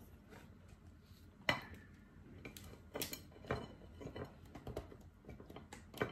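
Scattered light clicks and clinks of dishes and cooked lobster and crab shells being handled on a table, with sharper knocks about a second and a half in and at around three seconds.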